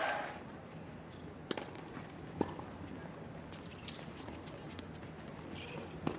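Tennis ball struck by racquets in a rally: two sharp pops about a second apart, then another near the end, over quiet court ambience. Crowd noise fades out right at the start.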